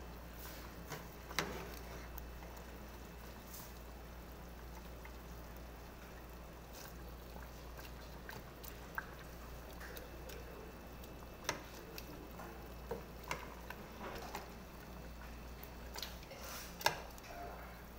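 Metal ladle stirring a thick stew in an aluminium pot: scattered clinks and knocks of the ladle against the pot, with soft liquid sloshing, over a steady low hum.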